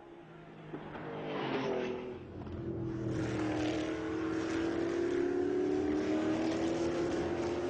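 Can-Am race car engines at speed through a corner: one engine's note falls in pitch about a second and a half in, then from about three seconds a louder engine note holds and rises slowly in pitch as a car accelerates.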